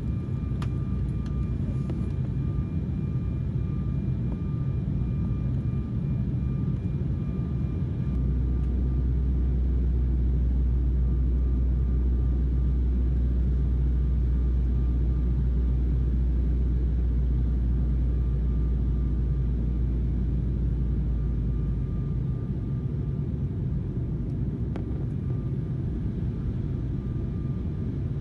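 Steady low rumble of an airliner's engines heard from inside the cabin, with a faint steady whine above it. A deeper drone swells in about eight seconds in and falls away about fourteen seconds later.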